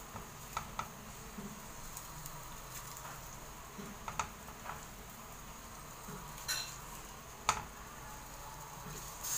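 Faint steady hiss of a pot of boiling water on the stove, with a few light clicks and taps from the plate and utensils as dumplings are dropped in one at a time.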